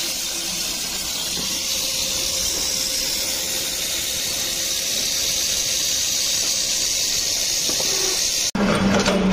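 Tyre-cutting machine running steadily: a constant hiss with a faint steady tone under it. About eight and a half seconds in, this cuts off sharply and a louder, lower machine hum begins.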